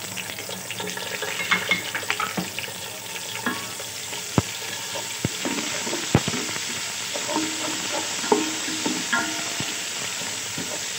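Onions and ginger-garlic paste sizzling in hot oil in a metal pot, stirred with a wooden spoon that scrapes and knocks sharply against the pot a few times.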